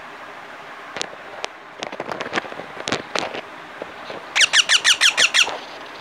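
Indian ringneck parakeet chick calling: scattered short chirps from about a second in, then a rapid run of about ten loud squawks, each falling in pitch, near the end.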